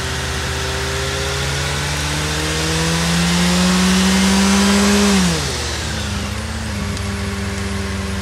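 A car held at high revs in a burnout, its drive wheels spinning and smoking the tyres: the engine note climbs slowly over a loud hiss, then the revs drop sharply about five seconds in and the engine settles at a lower steady speed.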